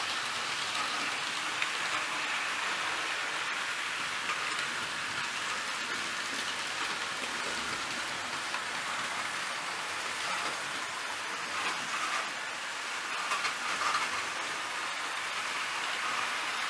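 Several model trains running around a layout at once: a steady rushing rattle of wheels on track and their motors, with a few louder clatters in the second half.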